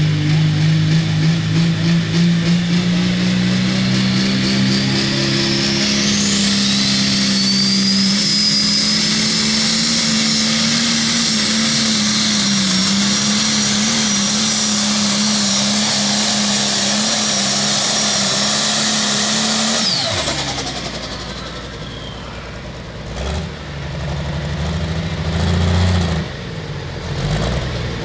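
Turbocharged diesel engine of a Case IH limited pro stock pulling tractor, revved in pulses at the line and then run flat out under load down the track, with a high turbo whine rising as it spools up. About twenty seconds in the throttle is chopped suddenly, the whine falls away, and the engine drops to a lower, uneven running with a couple of blips.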